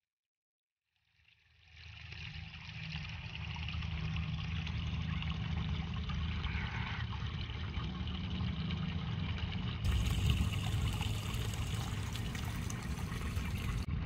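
Steady trickle of running water, fading in after about a second of silence, with a low rumble underneath.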